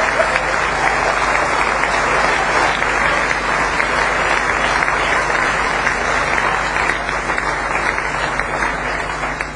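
Audience applauding, a dense steady clapping that thins out and falls off near the end.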